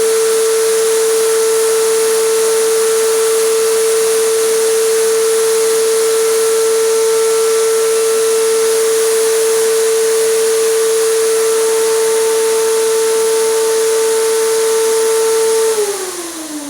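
Electric air compressor running with a steady whine over a strong hiss of air, then switched off near the end, its pitch falling as the motor winds down.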